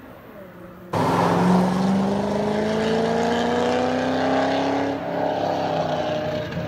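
A group of track-day sports cars, a Ferrari and a Nissan GT-R among them, accelerating hard together, several engine notes climbing steadily in pitch. A faint distant engine comes first, then a sudden jump in loudness about a second in; the notes break about four seconds later and carry on at a steadier pitch.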